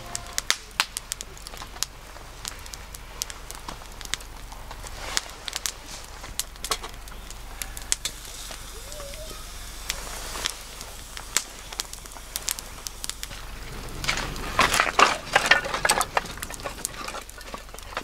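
Wood campfire burning on an iron grill stand, crackling with sharp pops and snaps scattered throughout. Late on there is a louder flurry of clicks and pops lasting a couple of seconds.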